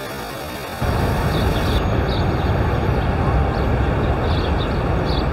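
An even hiss that gives way, about a second in, to a louder steady low rumble and rushing noise: wind buffeting the microphone over the rushing water of the Rhine below the falls, with faint short high sounds scattered over it.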